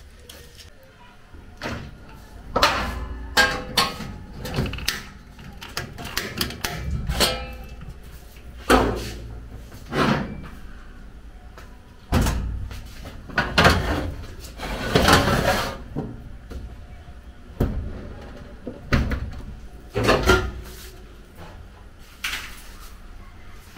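A dozen or more sharp knocks and clatters at irregular intervals, from objects being handled and set down.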